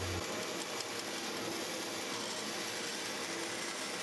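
Bandsaw running, its blade cutting through a cocobolo knife scale: a steady, even whir.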